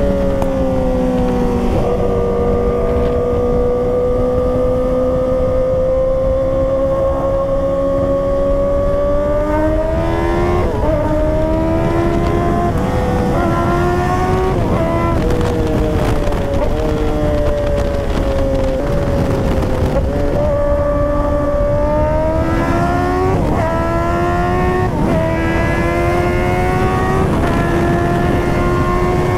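Kawasaki ZX-10R's inline-four engine pulling hard through the gears, its note climbing with speed and broken several times from about ten seconds in by a quick drop in pitch at each upshift before it climbs again. Heavy wind rush runs underneath.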